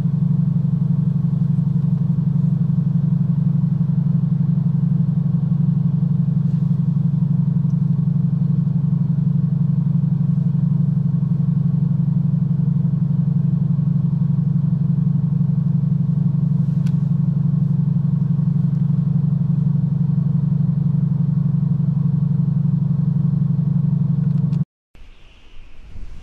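A vehicle running, heard as a loud, steady low drone from inside the cabin, which cuts off suddenly near the end.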